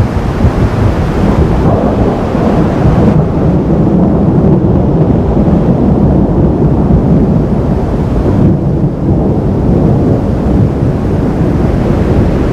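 Thunder rolling in one long, loud, low rumble.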